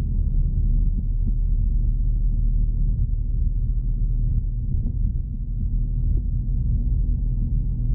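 Steady low rumble of a car driving, its engine and road noise heard from inside the cabin.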